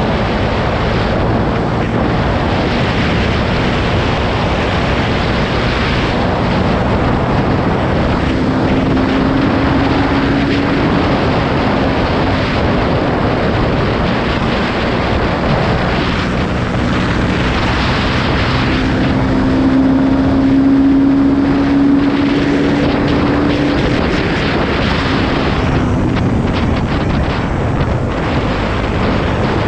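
Motorcycle riding at highway speed: steady wind rush on the microphone over the engine's running note, which climbs a little twice as the bike picks up speed.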